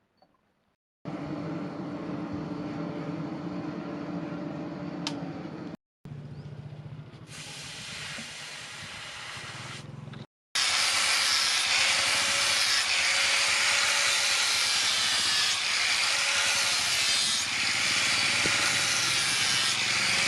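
Power tool running steadily, heard in three short clips cut hard against each other; the last and loudest is a dense grinding hiss with a faint tone that wavers up and down.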